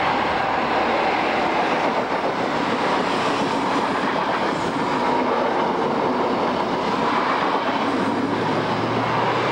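InterCity 125 High Speed Train passing close at speed, a Class 43 diesel power car leading, then its Mark 3 coaches rushing by in a loud, steady roar of wheels on rail.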